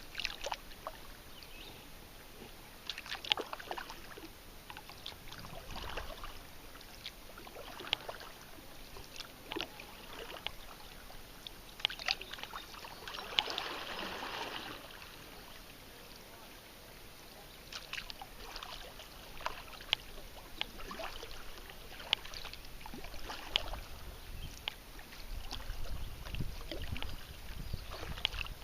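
Kayak paddle strokes in river water: irregular small splashes and sharp knocks, with a fuller wash of water a little before the middle.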